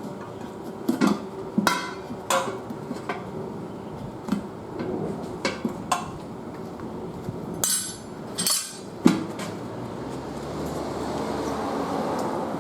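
Irregular metal clanks and knocks of a manual tire changer's bar and tire levers against the wheel rim and changer while a car tire's bead is worked on, about ten strikes, followed by a longer rubbing noise near the end.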